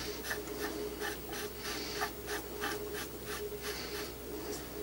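Cloth rag rubbing and wiping over a metal rifle barrel nut and its threads, clearing excess anti-seize: short scratchy strokes coming several times a second, uneven in spacing, over a faint steady hum.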